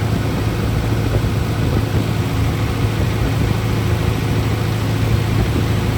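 The Isuzu diesel engine of a John Deere 245G LC excavator running steadily, with a low, even hum. It runs clean, with no blow-by.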